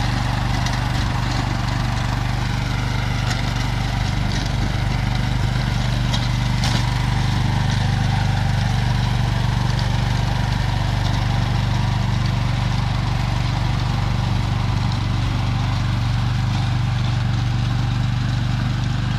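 Motoblock (walk-behind tractor) engine running steadily under load as it drives a rear-mounted rotary tiller through garden soil: an even, unbroken engine hum with the churning of the tiller underneath.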